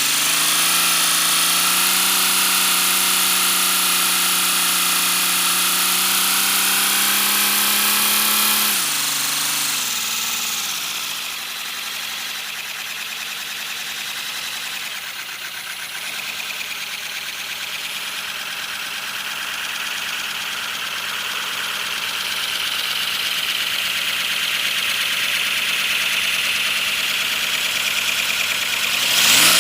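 3D-printed PLA V12 air engine running on compressed air, with a steady hum and a strong hiss. Its pitch creeps up, falls sharply about nine seconds in as the engine slows, then slowly climbs again.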